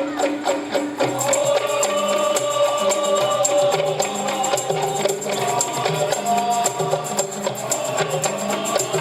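Qasidah music: held melody notes over a repeating bass line, with a steady tambourine-style jingling rhythm.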